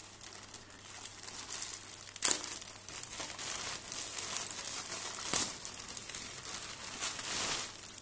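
Plastic courier mailer bag crinkling and tearing as it is pulled open by hand, with two sharp snaps, about two seconds in and again past five seconds.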